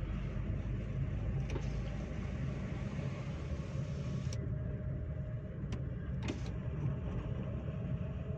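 Chevrolet Spin 1.2-litre car driving at a steady speed: a continuous low rumble of engine and tyre road noise, with a few faint clicks.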